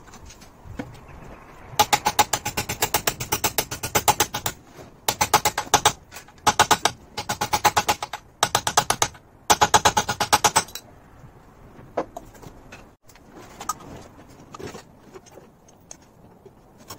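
Ratchet clicking rapidly as it is swung back and forth to run a nut onto the gear-change linkage, in five runs over about nine seconds. Afterwards a few light metallic knocks from handling the parts.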